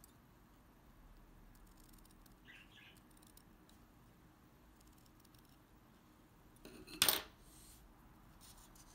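Quiet handling of organza ribbon, with one short, sharp scissor snip about seven seconds in.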